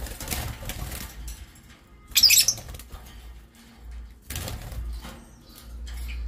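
A pair of caged lovebirds moving about on their perch, with rustling feather and scuffling noises and one short, harsh, high burst about two seconds in, the loudest sound here.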